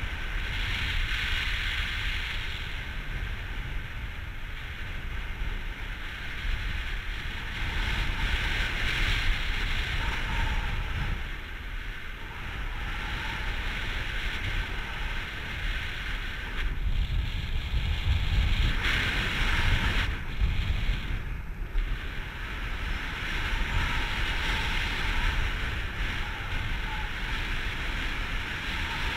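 Airflow rushing over a harness-mounted camera's microphone in paragliding flight: a low, buffeting rumble with a hiss that swells and eases every few seconds.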